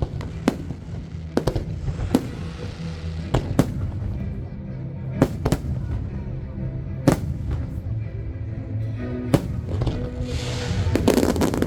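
Aerial fireworks going off in sharp, separate bangs every second or so, turning into a denser crackling shower near the end, over music with a steady bass.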